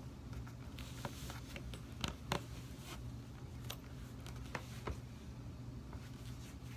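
Hands rubbing lotion into bare legs and feet: soft skin-on-skin rubbing with a few sharp little clicks and taps, the loudest two about two seconds in, over a low steady hum.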